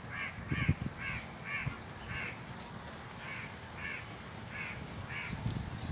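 A crow cawing repeatedly, about nine short harsh caws roughly half a second apart with a brief pause midway, over some low knocks and rustling.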